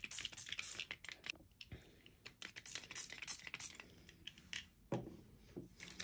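Distress Oxide pump-spray bottles spritzing ink through a stencil: a faint, quick run of small clicks from the spray nozzles with short hissy puffs.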